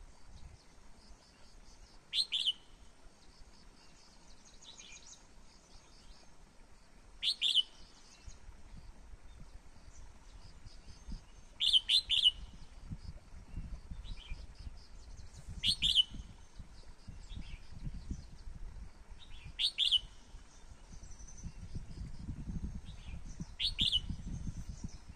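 Red-whiskered bulbul singing short, loud whistled phrases every four seconds or so, with fainter chirps in between.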